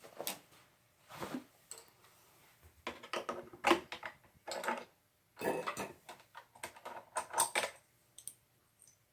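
Irregular clicks and light metal clatter of parts being handled at a Kenmore sewing machine's bobbin area, as the bobbin is checked after running out of thread.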